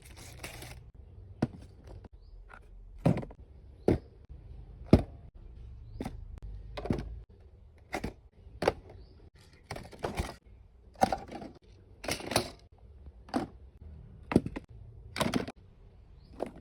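A box of plastic toy guns being handled and opened: a dozen or so sharp knocks and taps at irregular intervals, some with short rustles of packaging.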